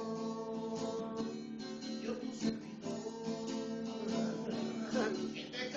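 Acoustic guitar strummed through a slow song, with a singing voice briefly over it.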